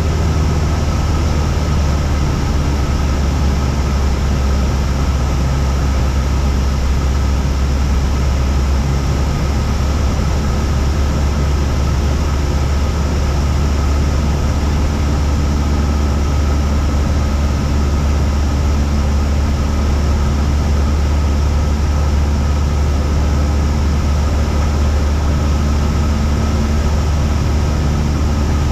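Cessna 172's piston engine and propeller droning steadily in flight, a strong low hum that holds the same pitch and level throughout.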